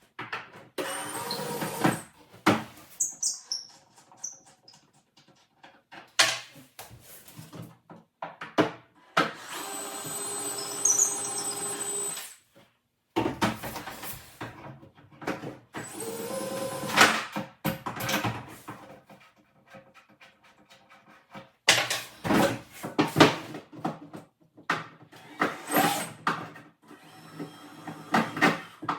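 Intermittent work noise: short runs of a small electric motor, the longest lasting about three seconds in the middle, with knocks and clatter between.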